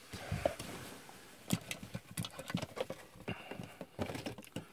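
Quiet, irregular light knocks and clicks with some soft rustling: handling noise from someone moving and fumbling in a darkened room.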